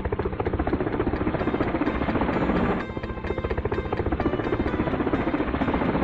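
A fan running, a fast whirring chop laid over background music with a steady beat; the whir cuts off suddenly just after the end.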